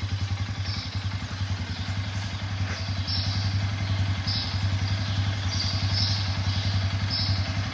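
2018 Arctic Cat Alterra 500 ATV's single-cylinder four-stroke engine idling steadily in neutral, with an even, fast-pulsing exhaust beat.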